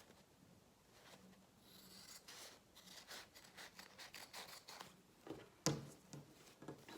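Scissors cutting through folded cotton fabric: a run of quiet rasping snips, then one sharp click about five and a half seconds in.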